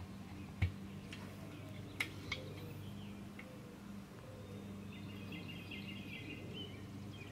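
Quiet outdoor ambience: a low steady hum under birds chirping for a couple of seconds near the end. A thump about half a second in and a few light clicks around two seconds come from hands working the tyre and wheel rim.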